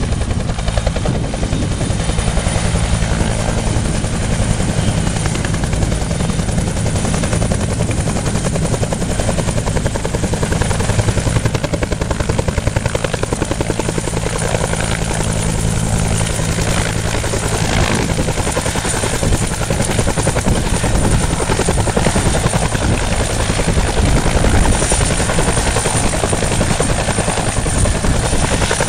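Police helicopter hovering low with a water bucket slung underneath: a steady, loud rotor beat with a thin high whine over it.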